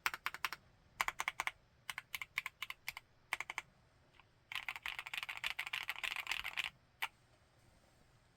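Typing on a Createkeebs High65 V2 65% mechanical keyboard with Gateron CJ linear switches in a CNC aluminium, gasket-mounted case: short clusters of keystrokes, then a fast continuous run of typing about halfway through, ending with a single key press about seven seconds in.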